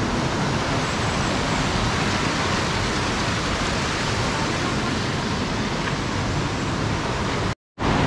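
Steady rushing of flowing river water, a loud even hiss. It cuts out completely for a split second near the end.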